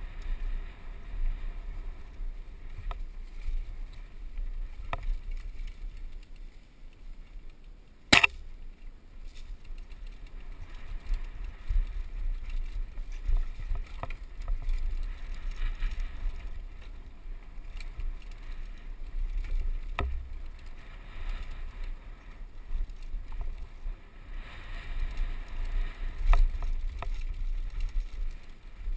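Downhill mountain bike riding over rough trail, with steady wind rumble on the microphone and scattered rattles and knocks from the bike. One sharp, loud click comes about eight seconds in.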